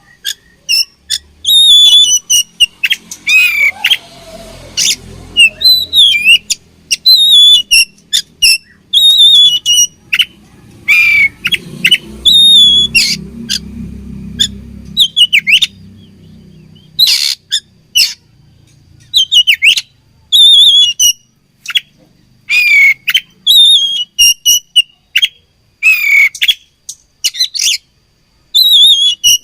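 Oriental magpie-robin singing: a fast, loud run of short, sharp whistled notes and chirps, many of them quick downward slurs, with brief pauses between phrases.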